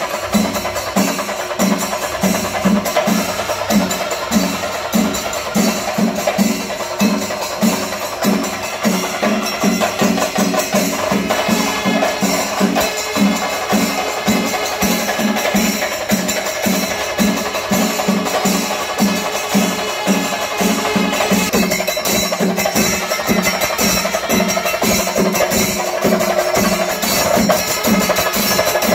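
A Kerala temple percussion ensemble (melam) playing: drums beat a steady pulse of about two to three strokes a second over a continuous wash of clashing cymbals, with a held horn tone from the curved kombu horns.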